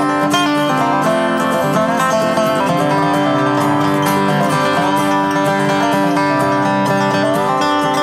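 Acoustic guitar and dobro playing an instrumental passage, with some notes sliding up and down in pitch.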